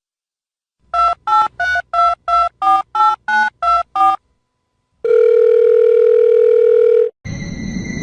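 Telephone keypad tones dialing ten digits, about three beeps a second, each beep two pitches at once. After a short pause comes one steady phone tone about two seconds long, and near the end a different sound begins: steady high tones over a hiss.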